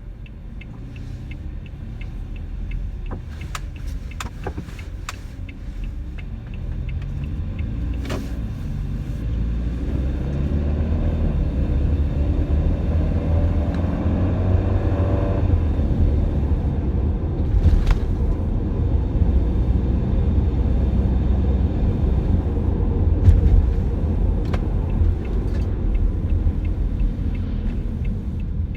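Toyota HiAce van being driven, its engine and road rumble building as it gathers speed, with faint regular ticking in the first few seconds. No abnormal noise is heard: the fault the owner had been chasing is gone.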